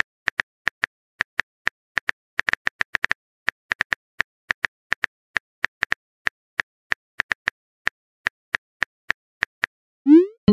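Phone keyboard typing sound effect: a run of short, sharp taps at an uneven pace of a few a second. Near the end, a quick rising pop sounds as the message is sent.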